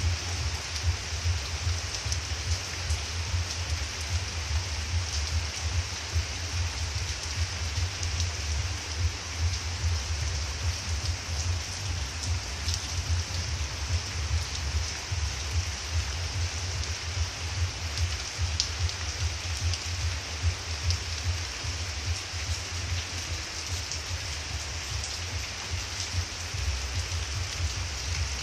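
Steady rain falling: an even hiss with occasional sharper drop ticks, over a low rumble that keeps rising and falling.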